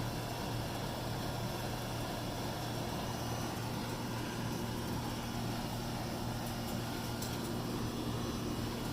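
A steady low machine hum over an even hiss, with a few faint clicks near the end.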